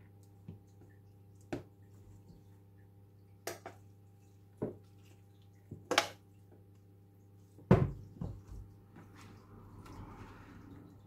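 Metal tongs and a fork clicking and scraping against a wok and a plastic tub while stir-fried vegetables are scraped out and tossed with rice noodles: scattered sharp clinks, the loudest about three-quarters through, over a steady low hum.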